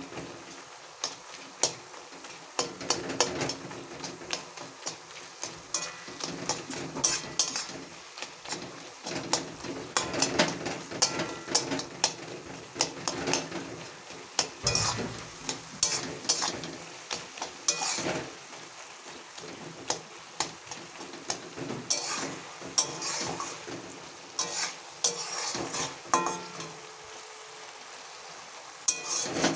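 Metal spatula scraping and knocking against an aluminium kadai in repeated irregular strokes as red amaranth greens are stirred, over a steady sizzle; the greens are being stirred to cook off the water still left in the pan.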